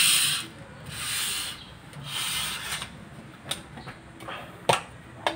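Toyota Hilux brake pad being scrubbed by hand to clean its lining, three rasping strokes about a second apart. Then a few sharp clicks or knocks near the end.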